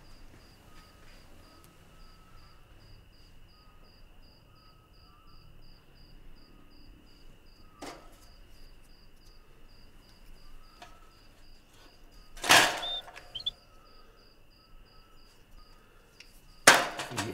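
Crickets chirping steadily, about three chirps a second over a constant high trill. Two loud, sudden, short noises break in about twelve and seventeen seconds in.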